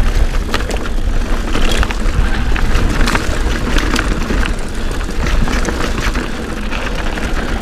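Wind buffeting an action-camera microphone while a mountain bike rides fast over a bumpy dirt trail, with a steady rush of noise and many sharp clicks and knocks as the bike rattles over the bumps.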